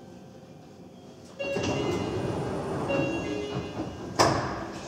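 Nagoya Municipal Subway 7000 series train's sliding passenger doors opening. The noise starts suddenly about a second and a half in, with a few short tones, and ends in a sharp clunk near the end as the doors reach full open.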